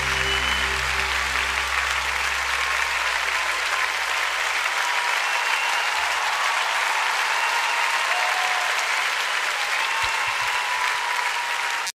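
Large concert audience applauding steadily. The song's final held chord rings out underneath and fades away about four seconds in.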